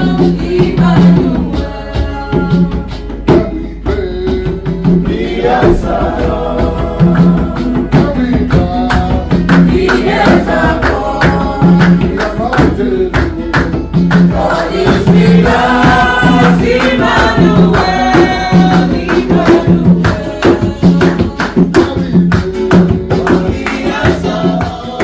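Gospel choir singing over a band, with a steady low drum beat.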